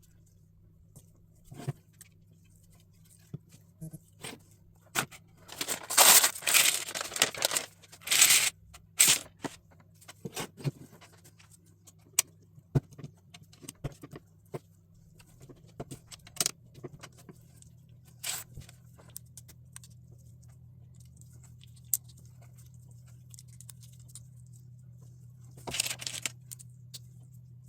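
LEGO pieces being handled and snapped together, a scatter of small plastic clicks and taps. There is a long burst of crinkling, tearing rustle about five to nine seconds in and a shorter one near the end.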